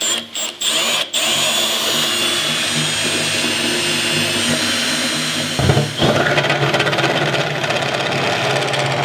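Compact brushless cordless drill turning a step drill bit, enlarging clearance holes in the aluminium diamond-plate panel of a canopy camper. It gives a few short trigger blips, then runs steadily with a high whine, stops briefly a little past halfway, and starts a second run.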